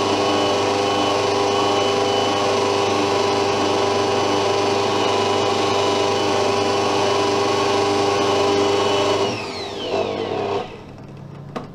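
Bosch stand mixer's motor running steadily with a humming whine as it beats flour into cake batter, then switched off about nine seconds in, its pitch falling as it spins down.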